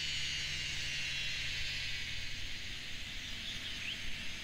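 Dusk outdoor ambience: a steady high hiss of insects calling, over a low hum, with one faint short rising chirp near the end.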